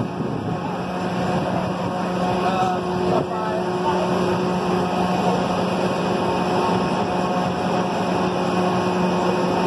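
Vertical wind tunnel for indoor skydiving running: a steady rush of air with a constant low hum from its fans.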